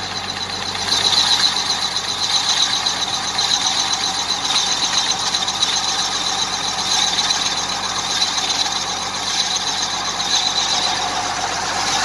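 Log-boring machine hollowing out a log: a rotating cutter head on a long belt-driven shaft grinds steadily into the wood.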